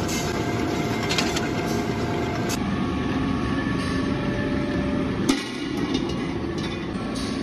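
Steady din of metalworking machinery in a workshop pressing and finishing steel gas cylinder halves, with a few sharp metal knocks; the loudest clank comes about five seconds in.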